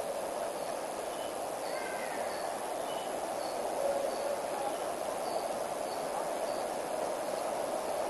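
Steady rushing outdoor river ambience, with faint short high chirps scattered through it every second or so.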